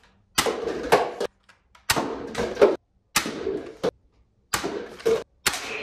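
Toy foam-dart blaster fired about five times in a row, each shot a sharp click followed by a short noisy burst of under a second.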